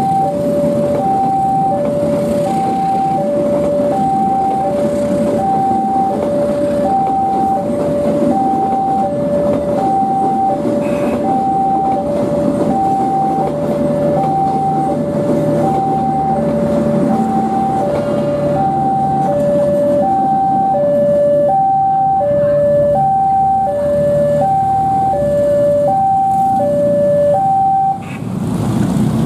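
Railway level-crossing warning alarm sounding a steady two-tone electronic signal, high and low notes alternating about twice a second, which cuts off just before the end. A fainter, higher beeping joins about two-thirds of the way through, over a constant background rumble.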